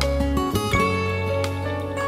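Background music: gentle plucked acoustic guitar with sustained notes.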